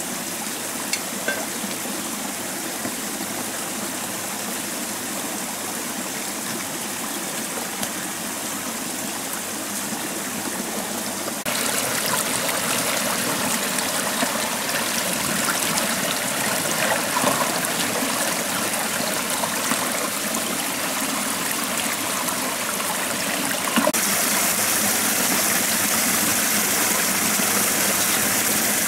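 Shallow rocky stream running and splashing over stones, a steady rush. It gets louder and hissier in two sudden steps, about eleven seconds in and again near the end.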